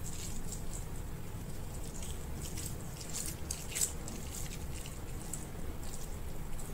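A hand squeezing and kneading ripe noni fruit into damp rice-bran and bread-crumb fishing bait in a plastic bowl. It makes soft rustling and squishing, with scattered crackles that are thickest in the middle, over a steady low hum.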